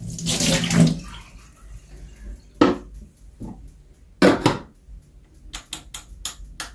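Water poured off from a small saucepan of raw chicken pieces, a rush lasting about a second, followed by a couple of knocks and a quick run of clicks near the end.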